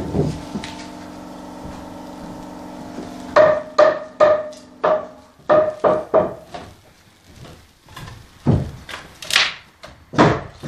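Hammering: a run of about eight sharp, ringing hammer strikes, roughly two a second, then a few heavier knocks near the end. A steady hum comes before the strikes.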